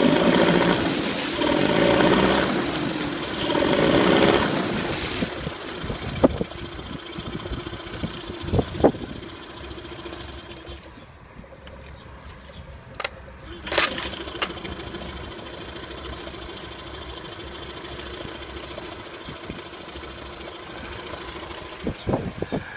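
8 hp Mercury outboard motor running, surging loudly three times in the first few seconds and then settling to a steadier, quieter run. A few sharp clicks or knocks sound over it.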